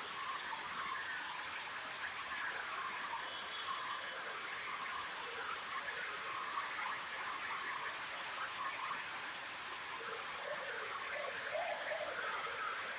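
Steady rush of flash-flood water pouring through the streets, heard from high above as an even, distant noise.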